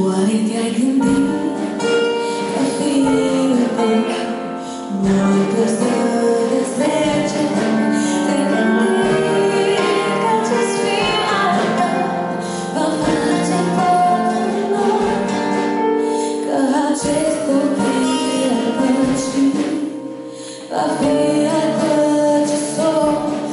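Mixed choir singing with a band and string players accompanying, over a steady low beat. The music drops back briefly near the end, then the full sound comes in again.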